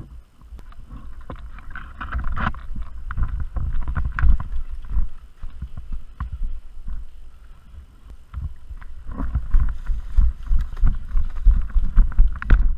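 Footsteps and the rustle of clothing and gear as a player moves on foot, with wind buffeting the microphone of a body-worn action camera. The thumps are uneven, with two busier stretches, around two to five seconds in and again from about nine seconds on.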